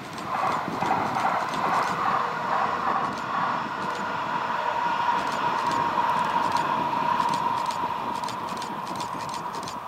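Bombardier ET 2010 tram-train running along the line some way off: a steady whine with a scatter of light clicks, easing slightly near the end.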